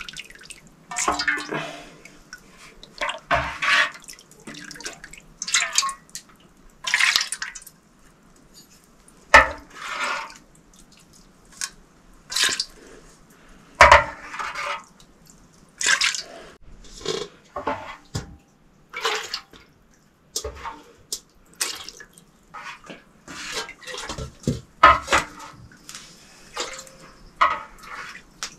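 Water splashing and sloshing in short, irregular bursts, about a dozen times over the span.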